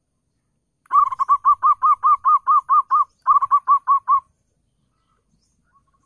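Zebra dove (perkutut) cooing: starting about a second in, a quick even run of about a dozen short arched notes, a brief break, then about six more.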